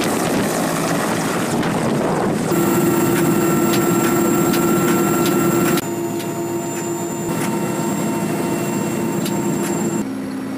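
Mil Mi-8 helicopter running: its twin turboshaft engines and rotor are first a rushing roar from outside as it flies past. Then, from inside the cockpit, the sound becomes a steady turbine whine over the rotor drone. The sound changes abruptly about two and a half, six and ten seconds in.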